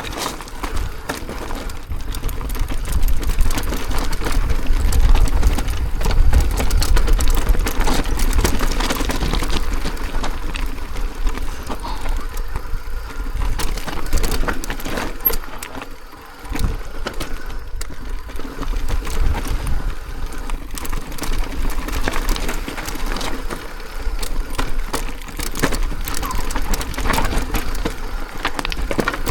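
E-mountain bike rattling and clattering as it rolls down a rocky trail, with the brakes dragging. A low wind rumble sits on the microphone.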